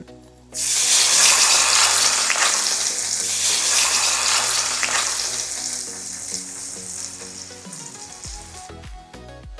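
Food sizzling in a hot pan. A loud hiss starts suddenly about half a second in as the food hits the hot surface, then slowly dies down over the last few seconds.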